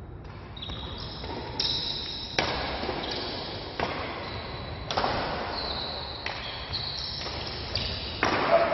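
Badminton rackets striking a shuttlecock in a fast doubles rally, a sharp hit about once a second, each ringing on briefly in a large hall. Short high squeaks of shoes on the court floor come between the hits.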